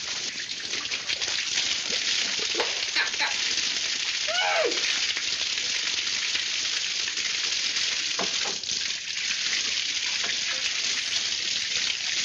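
Water spraying and splashing from a leaking pipe, a steady hiss throughout, with a brief rising-and-falling cry about four and a half seconds in.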